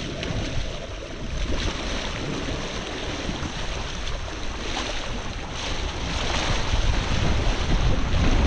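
Wind buffeting the microphone and water rushing past the hull of a small sailboat under way, growing a little louder near the end.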